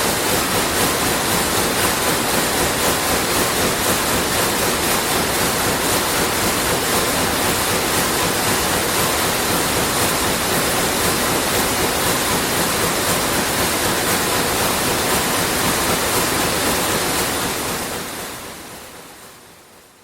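Sulzer weaving looms running: a dense, steady mechanical clatter that fades out over the last few seconds.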